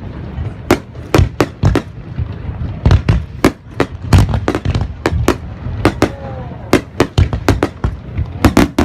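Fireworks display shells bursting in quick, irregular succession: many sharp bangs, about two a second, over a continuous low rumble.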